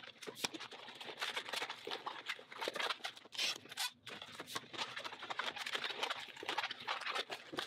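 A latex 260 modelling balloon is twisted and folded by hand, giving a busy run of small rubbery squeaks and rubbing, with a brief break about four seconds in.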